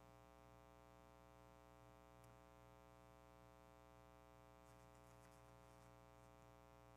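Near silence: a steady faint electrical hum, with faint paper rustling about five seconds in as a page of notes is turned.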